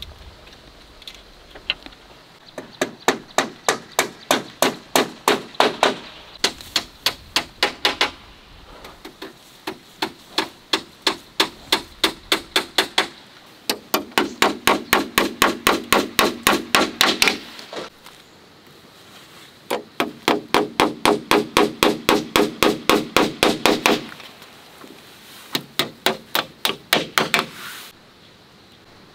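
A hammer driving nails through split bamboo slats into a wooden frame, in six quick runs of strikes at about five a second, with short pauses between runs.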